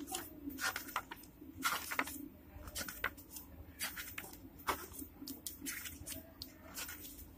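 Pages of a large printed field guide being turned by hand, a series of irregular papery rustles and flicks as the sheets are leafed through one after another.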